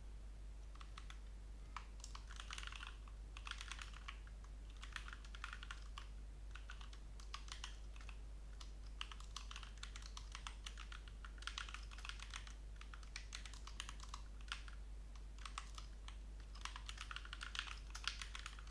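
Typing on a computer keyboard: quick runs of keystrokes in bursts of a second or two, with short pauses between them.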